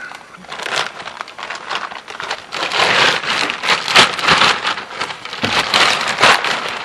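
Dense crackling and rustling, like material being handled or crumpled, louder from about two and a half seconds in.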